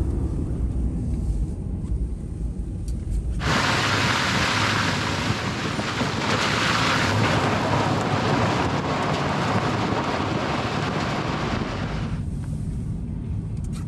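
Pickup truck driving on a wet, snowy gravel road: a low rumble of engine and road in the cab, then about three and a half seconds in a loud rushing of wind buffeting the microphone and tyre noise from the rear dual wheels running through slush and puddles, which cuts off sharply some nine seconds later back to the low cab rumble.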